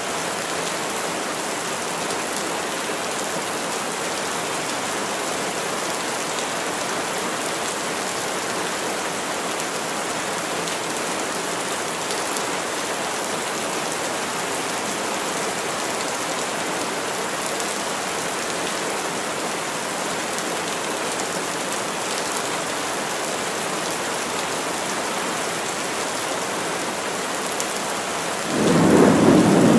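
Heavy rain falling steadily in a forest. Near the end a loud, low rumble of thunder breaks in and becomes the loudest sound.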